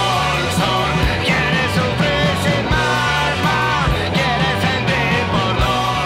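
Rock band music: a singer's voice over a steady drum beat and a moving bass line.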